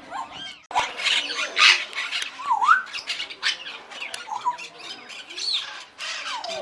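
A crowd of parrots, parakeets and cockatoos squawking and screeching over one another, with one clear rising whistled call a little over a third of the way in.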